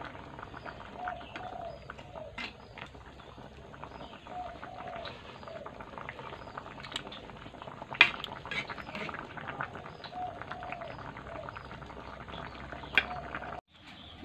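A pan of creamy sauce simmering and bubbling while a metal ladle stirs and scrapes it. The ladle knocks sharply against the aluminium pan about eight seconds in and again near the end. A bird calls repeatedly in the background.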